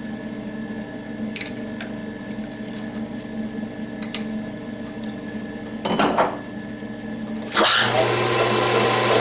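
Metal lathe running on a titanium baffle blank: a steady motor hum with a few sharp clicks. About three-quarters of the way through it turns much louder, a whirring rush as the chuck spins fast.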